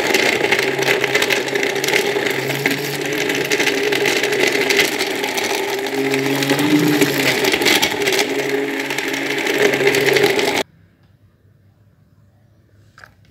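Electric stick (immersion) blender running steadily in a pot of yogurt, milk and ice, blending lassi; its pitch wavers slightly as it works, and it cuts off about ten and a half seconds in. Near the end a steel ladle clinks against the pot a couple of times.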